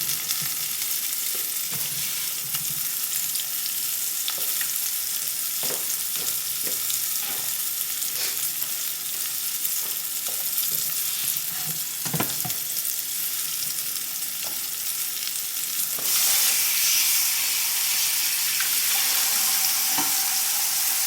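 Coated asparagus spears frying in hot oil: a steady sizzle that gets louder about 16 seconds in, with a few light knocks along the way.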